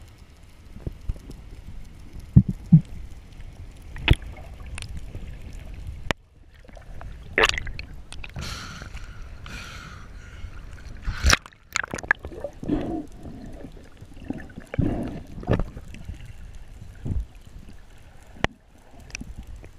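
Underwater rumble with scattered knocks and clicks. About halfway through, the diver surfaces and water splashes and sloshes around the camera for a few seconds, then it goes under again and the low muffled sound returns.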